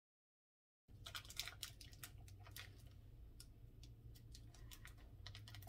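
Dead silence for about the first second. Then faint room hum with scattered light clicks and rustles of hands working the plastic and tissue wrapping off a doll's head.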